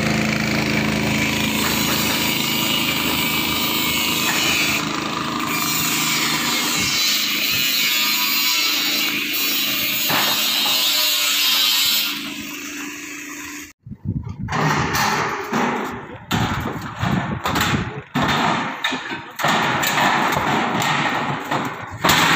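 A small engine or power tool runs steadily for about the first twelve seconds. After a cut, irregular knocks and clatter follow.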